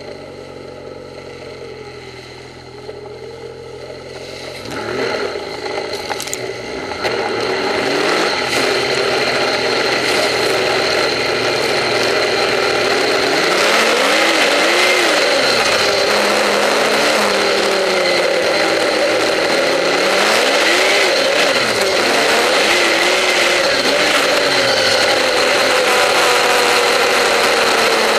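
Snowmobile engine running low and steady, then picking up about five seconds in and running at higher revs, its pitch rising and falling with the throttle as the sled rides, over a steady high whine.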